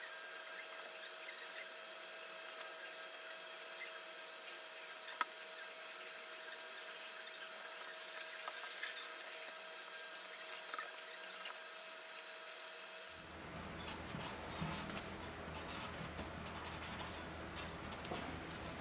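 Felt-tip marker rubbing and scratching faintly on paper through a plastic stencil, over a steady faint hum. About 13 seconds in the sound grows fuller, with rustling and light taps of paper and stencil being handled.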